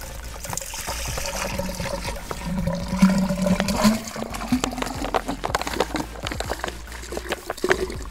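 Fanta orange soda being poured from a two-litre plastic bottle into a plastic pipe sunk in sand, splashing and gurgling. About halfway through, a tone rises in pitch, and then a run of glugs follows as the upturned bottle empties.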